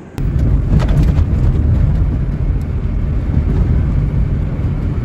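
Road and wind noise of a moving car heard inside the cabin: a loud, steady rumble that starts abruptly just after the start and cuts off at the end.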